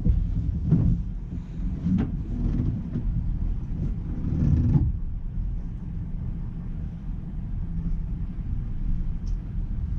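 Vehicle moving slowly, a low engine and road rumble. It is uneven with surges in the first few seconds, then settles to a steady rumble.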